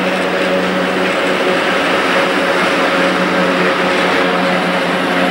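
PKP Cargo ET22 electric locomotive and its intermodal container train rolling past, a steady rush of wheel-on-rail noise with a low, even hum underneath.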